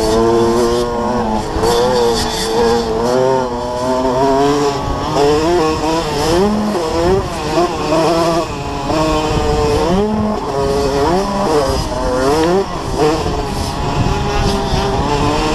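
Two-stroke engine of a KTM 65 SX youth motocross bike at full throttle, its pitch climbing and dropping again and again as the rider accelerates, shifts and backs off for turns.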